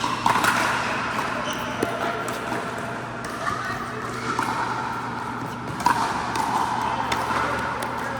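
Pickleball paddles striking a hard plastic ball: a handful of sharp, ringing pops a few seconds apart over steady background noise.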